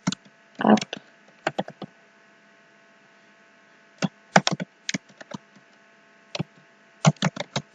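Typing on a computer keyboard: keystrokes clicking in short irregular bursts, with a pause of about two seconds in the middle. A faint steady electrical hum runs underneath.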